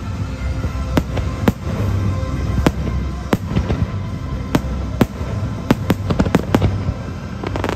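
Fireworks bursting overhead, about a dozen sharp bangs at irregular intervals, over steady orchestral show music.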